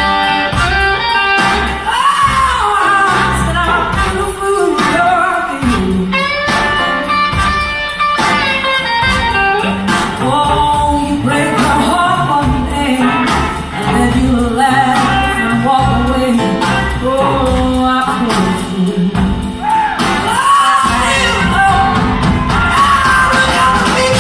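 Blues band playing live, heard from the audience in a theatre: drums and electric guitars with a lead voice over a slow, heavy groove.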